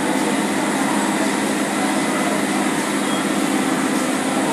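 Berlin U-Bahn train standing at an underground platform with its doors open, giving a steady hum over the station's background noise.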